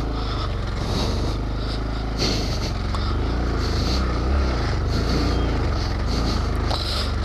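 Honda Grom's small 125 cc single-cylinder four-stroke engine running under load through soft sand, its revs rising and falling in slow swells as the rider works the throttle.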